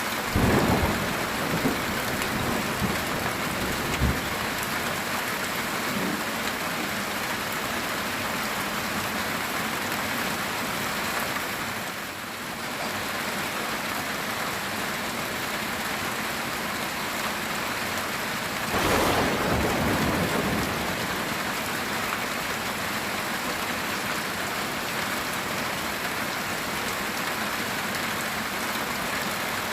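Heavy rain falling steadily on a metal tin roof, with claps of thunder shortly after the start and again about two-thirds of the way through.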